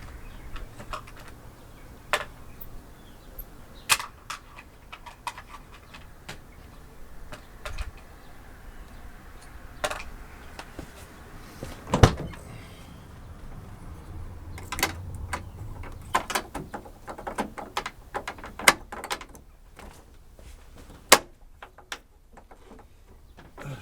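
Irregular clicks, taps and knocks of small parts and hardware being handled at a van door, with a few louder knocks, the loudest about halfway through.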